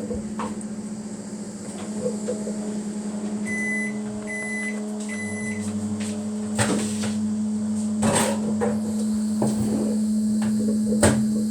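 Microwave oven running with a steady hum, stopping near the end. Three short high beeps come partway through, and a couple of knocks follow.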